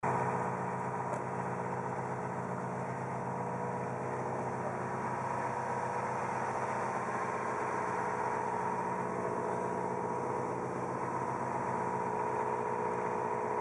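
A vehicle engine idling in a steady hum.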